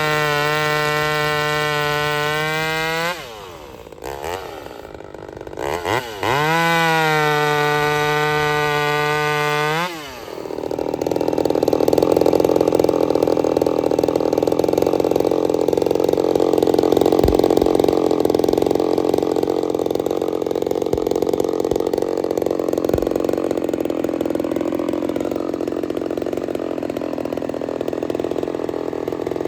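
Ported Homelite VI-130 two-stroke chainsaw held at full throttle, dropping off about three seconds in and revving back up. From about ten seconds in the chain is in the wood, bucking firewood under load with a steady rough cutting noise.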